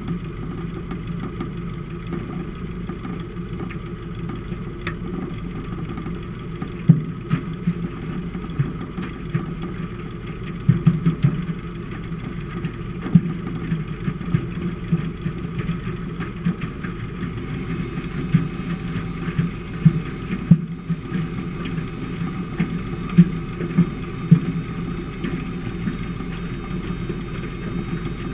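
Seaplane's piston engine running steadily at low power while taxiing on water, with irregular short thumps over it.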